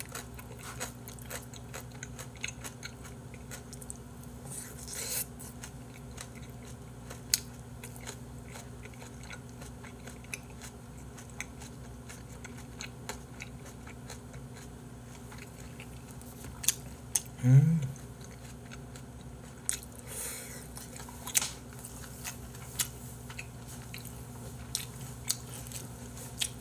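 A person chewing and biting food close to the microphone, with scattered small clicks and smacks over a steady low hum. About seventeen seconds in comes one short, louder sound that rises in pitch.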